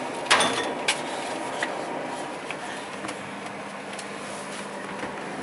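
Two sharp knocks about half a second apart near the start, then the steady hum of a refrigerator running with its door open.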